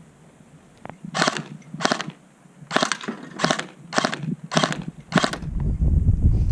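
Krytac Kriss Vector airsoft electric gun firing full auto in seven short bursts, each a fraction of a second long. A low rumble builds near the end.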